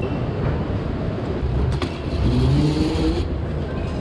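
Vehicle engine running over a steady low rumble, its pitch rising for about a second just past the midpoint as it speeds up.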